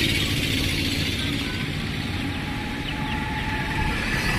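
Steady low rumble of motor vehicle engines and traffic.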